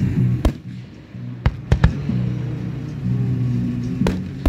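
Aerial fireworks shells bursting: about six sharp bangs, three in quick succession about a second and a half in and two more near the end, over music playing along.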